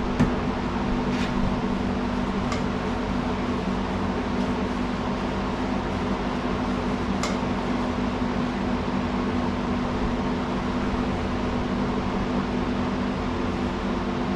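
Steady mechanical hum, like a motor or fan running, with a few faint clicks or taps.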